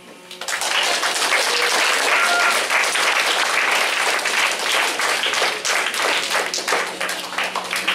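A room full of students applauding: dense clapping that starts about half a second in and eases off near the end.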